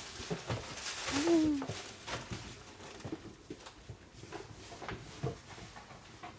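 Doberman puppy sniffing and licking at a hand: soft scattered clicks and snuffles. A short, low pitched sound rises and falls about a second in.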